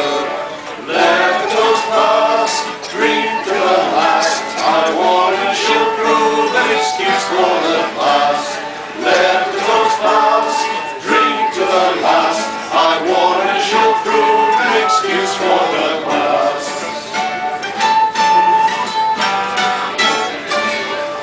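A group of men sing a ballad together in unison, accompanied by a plucked string instrument and a flute.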